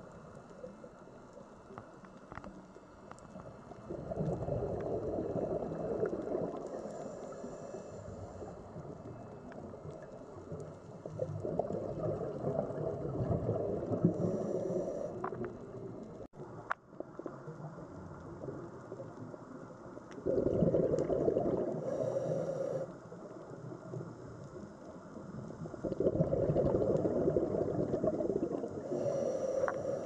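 Scuba diver breathing through a regulator underwater: four bursts of bubbling exhaust, each two to three seconds long and about seven seconds apart, each followed by a short, fainter hiss of inhalation. Faint scattered clicks sound in the gaps between breaths.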